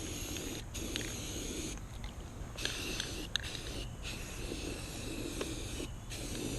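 Spray paint hissing in bursts of one to two seconds with short breaks between them, as a first coat of paint goes onto a trailer wheel rim.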